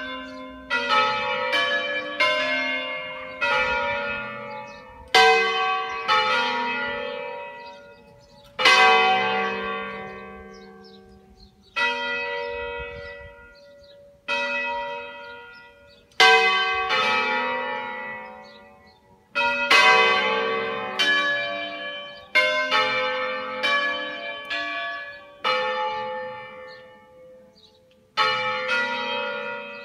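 A ring of five church bells in G, cast by Ottolina of Seregno in 1947, sounding one after another in an uneven pattern, strokes coming every second or two with a few longer gaps, each stroke ringing on and fading.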